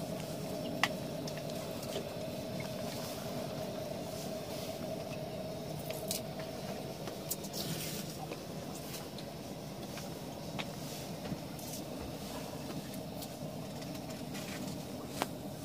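A boat's engine running steadily with a low hum. A few light clicks and knocks come over it.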